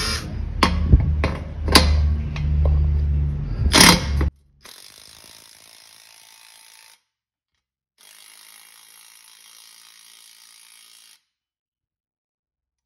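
Cordless electric ratchet running as it tightens the clamps down: a steady motor drone with several sharp clicks, which stops abruptly about four seconds in. After that there is only a faint hiss, broken by a short gap, and then silence.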